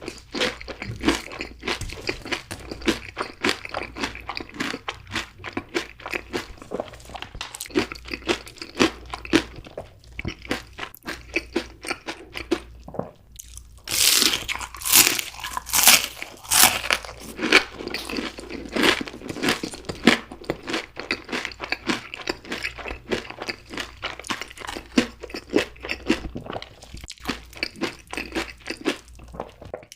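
Close-miked chewing of crispy fried food, with many sharp, crackly crunches. About halfway through a fresh bite brings a run of louder crunches before the chewing settles again.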